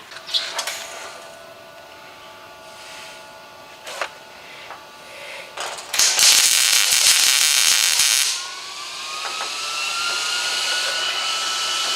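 A few sharp metal clicks, then a loud hiss lasting about two seconds, followed by a small electric motor spinning up with a rising whine that settles into a steady hum.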